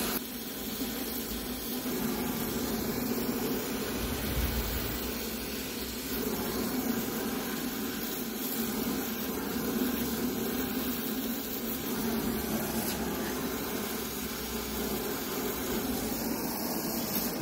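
Oxy-fuel gas torch burning with a steady hiss as its flame heats a metal workpiece for brazing.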